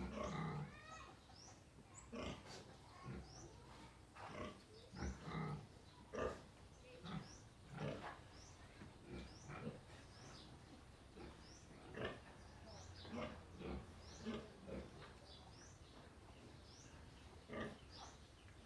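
Piglets grunting in short, irregular bursts while they eat banana, with small high squeaks mixed in.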